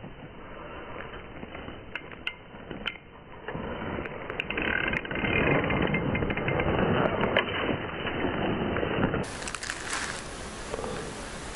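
Spinning reel cranked through a lure retrieve, its gears whirring and clicking, heard slowed down and dull until about nine seconds in, when it turns brighter at normal speed.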